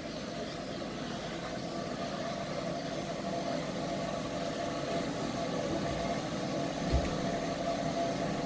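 Electric grooming clippers running with a steady hum while clipping a dog's hair, with a short low bump about seven seconds in.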